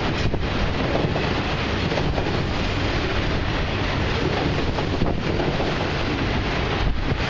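Freight train of autorack cars rolling past, a steady rumble of steel wheels on the rails, with wind buffeting the microphone.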